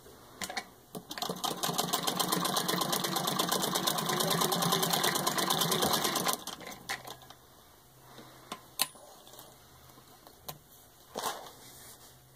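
Antique 1916 Singer 66-1 sewing machine, turned by a hand crank, stitching through six layers of denim: a fast, even clatter of the needle and feed that starts about a second in and stops about six seconds in. A few scattered clicks and knocks follow.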